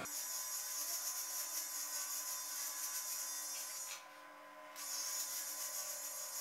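Xiaomi Mitu baby trimmer with a ceramic blade running against beard stubble: a faint, steady buzz and hiss of the cutting. The sound drops away briefly about four seconds in, then carries on.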